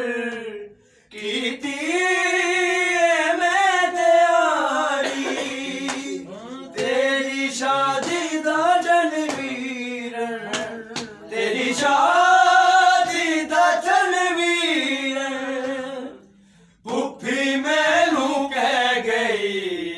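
Male voices chanting a Punjabi noha lament unaccompanied, in long drawn-out wavering lines, with brief pauses for breath about a second in and near the end.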